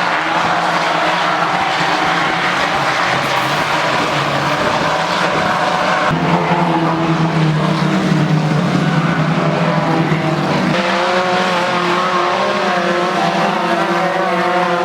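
Race car engines running hard at high revs, loud and continuous. The engine note changes abruptly twice, about six and eleven seconds in, as a different car or shot takes over.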